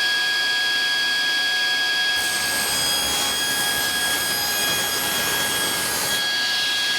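Table saw running at full speed with a steady high whine, its blade crosscutting a wood panel against the grain from about two seconds in until about six seconds in.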